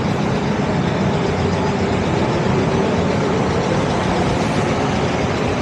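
Steady road traffic noise from a busy main road, a continuous rush of passing vehicles with a faint engine note wavering through it.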